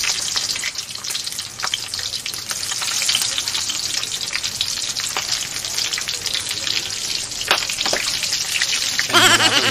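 Cubes of pork belly frying in hot oil in a wok: a steady sizzle with frequent sharp crackling pops as more pieces go in. Near the end there is a brief pitched sound.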